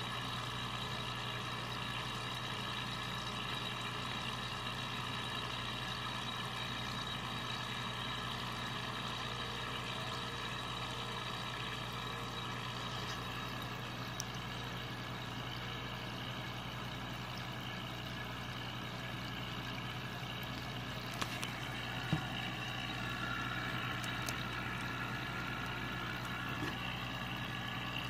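A steady low mechanical hum with a hiss over it, with two faint clicks about three quarters of the way through.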